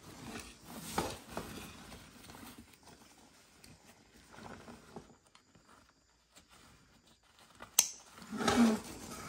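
Canvas military rucksack being handled and strapped up: fabric rustling and straps and webbing being pulled, with a sharp click near the end as a plastic buckle snaps.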